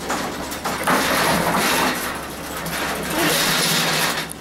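Montgomery elevator's two-speed sliding doors running, heard as two surges of rushing mechanical noise of about a second each, over a steady low hum.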